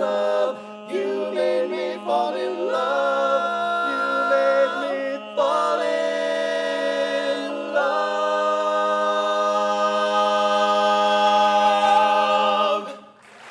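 Barbershop quartet singing a cappella in close four-part harmony over a sustained low note, moving through several chords and then holding one long final chord that cuts off sharply just before the end.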